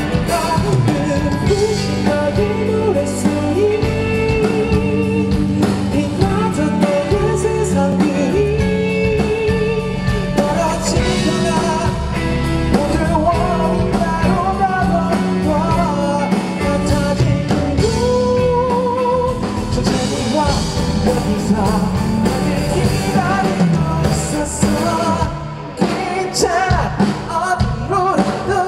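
A male lead vocalist singing live over a pop-rock band, with the voice's melody wavering in vibrato on held notes. Near the end the band thins out briefly.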